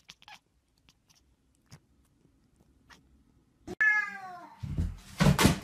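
A cat's single meow, sliding down in pitch, followed about a second later by a run of loud knocks and rattles.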